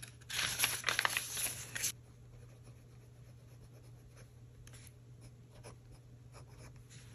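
Paper pages of a small notebook riffled and turned, a crisp rustle for about the first two seconds. Then a BENU Euphoria fountain pen's medium steel nib writes on dot-grid paper with a faint scratching.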